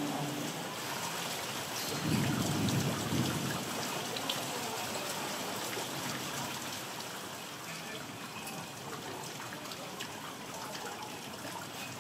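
Heavy rain falling steadily, with a low rumble of thunder about two seconds in that lasts a little over a second.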